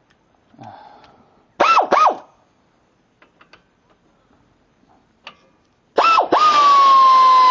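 Air ratchet run in two short bursts about a second and a half in, each a whine that rises and drops away, with a few light clicks after. Near the end it runs again and settles into a long steady whine.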